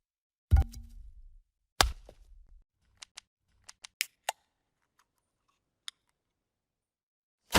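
A string of short video-transition sound effects: two sharp hits with a low thump about half a second and two seconds in, then a scatter of small quick clicks, and a louder hit with a hissing tail near the end.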